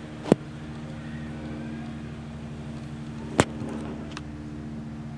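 A steady low mechanical hum made of several held tones, like a motor running, with two sharp clicks about three seconds apart, the first just after the start.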